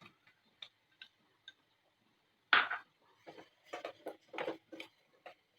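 Kitchen utensils clinking and scraping against a cooking pan as a sugar and spice mixture is added to simmering honey. A few light ticks, then a sharp clank about two and a half seconds in, the loudest sound, followed by a run of irregular knocks and scrapes.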